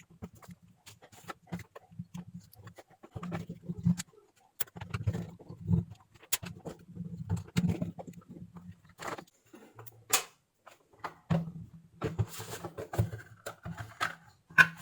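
Irregular clicks, taps and scraping as a plastic 24 V switch-mode power adapter case is handled and pried open, with a low buzz that comes and goes.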